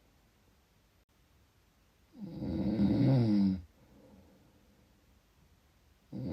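Snoring: one loud snore about two seconds in, lasting about a second and a half, its pitch sliding down, between quiet breaths, with the next snore starting near the end.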